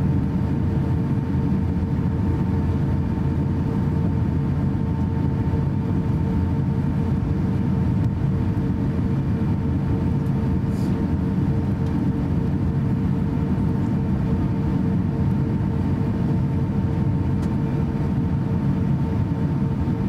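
Cabin noise inside an Airbus A350-900 taxiing: a steady low rumble with a constant hum-tone and its higher overtone running over it.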